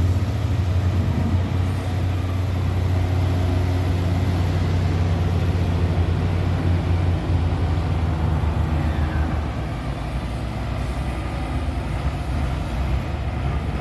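Heavy diesel dump truck engine running hard with a steady low drone, easing off slightly about two-thirds of the way through.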